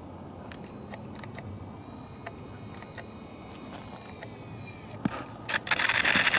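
Quiet outdoor air with a few faint ticks, then, about five seconds in, a sudden loud, continuous crackling scrape as the ST Model Blaze glider touches down and skids across crusty snow.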